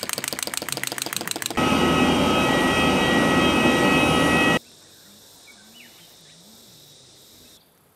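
A wind-up toy's clockwork ticking fast, about ten clicks a second, for about a second and a half. Then the loud whine and rush of a jet airliner's engines for about three seconds, cutting off suddenly, followed by a faint hiss.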